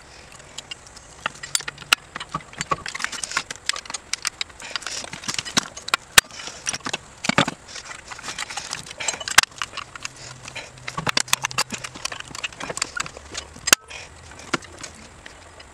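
Metal clicking and clanking as the shoes and coil return springs of a Triumph/BSA drum brake are handled and worked into place on the backing plate: many sharp clicks at uneven intervals.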